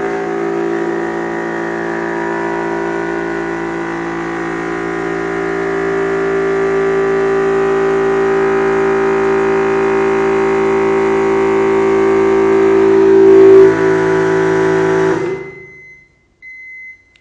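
Yong Heng 300-bar (4500 psi) electric PCP air compressor running steadily under load, pumping up pressure to test an adjusted regulator valve, its tone growing slowly louder as pressure builds. It stops about fifteen seconds in as it reaches about 250 bar, and a high beeping tone follows near the end.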